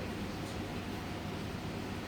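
Steady room noise: a constant hiss with a low hum underneath, no distinct events.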